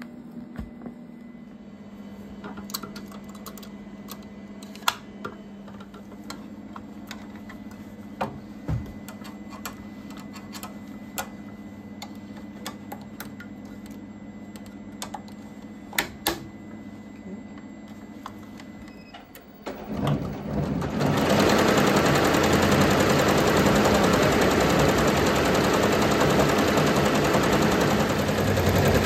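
Sharp clicks and knocks of an embroidery hoop being handled and clipped into place, over a steady low hum. About twenty seconds in, an SWF multi-needle embroidery machine starts stitching: a loud, rapid, steady clatter of the needles.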